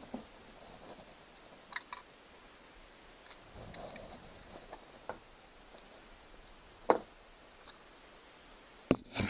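Scattered small clicks and taps of screwdrivers and fingers on the metal parts of a MerCruiser 3.0 L distributor, as the breaker points and condenser are worked loose. The sharpest knock comes about seven seconds in, with two more just before the end.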